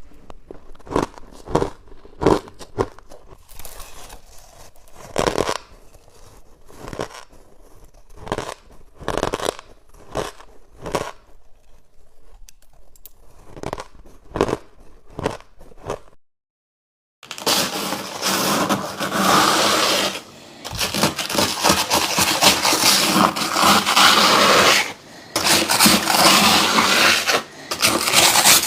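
Sharp crunches of hard freezer ice being bitten, roughly one every second. After a short silence comes loud, continuous scraping of freezer frost in long strokes a few seconds each, broken by brief pauses.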